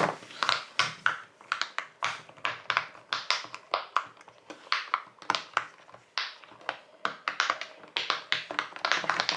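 Bubbles of a jumbo silicone pop it fidget toy being pressed one after another, a run of sharp pops about three or four a second.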